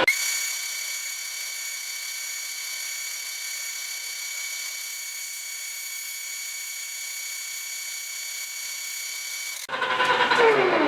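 Steady high-pitched machine whine from a metal lathe, a few even tones with almost no low end. It cuts in abruptly and stops abruptly near the end.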